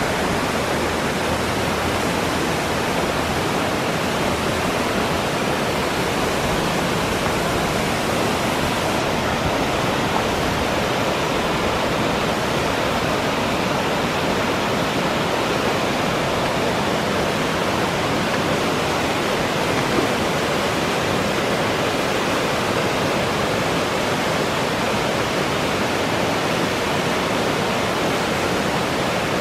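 Toxaway Falls, a waterfall sliding down a broad sloping rock face and splashing into the pool at its foot, making a steady, even rush.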